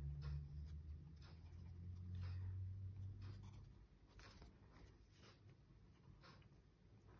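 Pencil scratching on paper in short, repeated strokes, faint. A low hum runs under it and stops about four seconds in.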